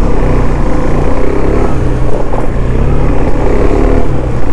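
KTM Duke 390 single-cylinder motorcycle engine running steadily while riding, under a dense low rumble of wind on the microphone.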